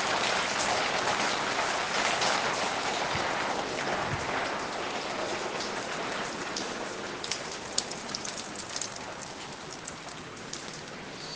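Steady rain falling in an even hiss, slowly easing, with individual drops ticking more distinctly in the second half.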